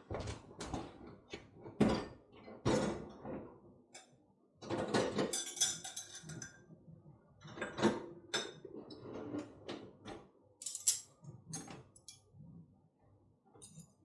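A spoon stirring wet soda bread dough in a ceramic mixing bowl: irregular scrapes and knocks against the bowl, with one longer scraping stretch about five seconds in.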